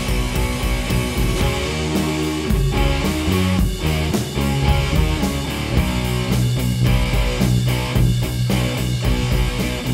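Guitar-driven rock music with a steady drum beat.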